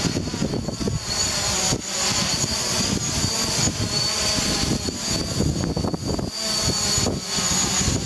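DJI Mavic Pro quadcopter hovering close by, its propellers making a steady high whine that wavers slightly in pitch, over a choppy low rumble of strong wind buffeting the microphone.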